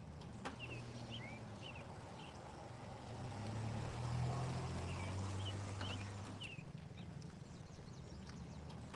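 A car driving past on a street, its engine and tyre noise swelling to a peak about four seconds in and then fading. Small birds chirp a few times, near the start and again about six seconds in.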